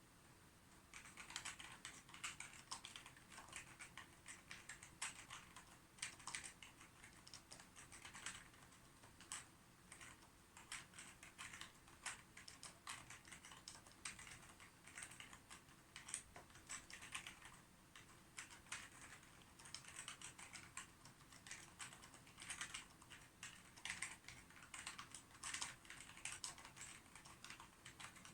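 Typing on a computer keyboard: quick, uneven runs of soft key clicks, with a short pause about a second in.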